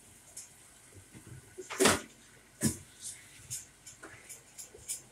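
Sharp knocks in a kitchen, the loudest about two seconds in and a second one just under a second later, among lighter scattered clicks and ticks.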